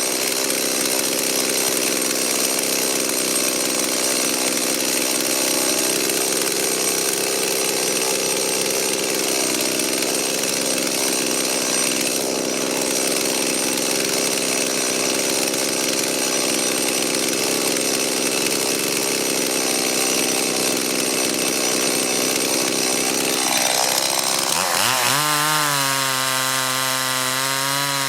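Stihl MS 170 two-stroke chainsaw running at steady high throttle while cutting wood, with dense, even engine and chain noise. About 24 seconds in, the cutting noise falls away and the engine note turns clear and wavering. This is the rebuilt saw, with a new carburettor and fuel line, running well.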